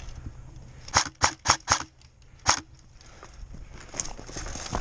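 Airsoft gun firing: four sharp shots about a quarter second apart, then a fifth shot a moment later.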